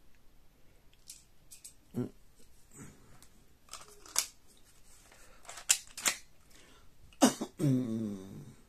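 Scattered sharp plastic clicks and rattles as BBs are loaded into a cheap spring-powered BB pistol and it is handled. A louder clack comes about seven seconds in, followed by a short low vocal sound.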